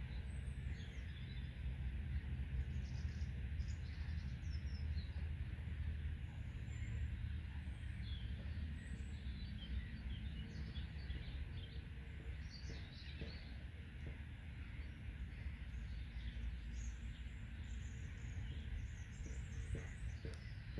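Small birds chirping and twittering on and off over a steady low rumble of wind buffeting the microphone.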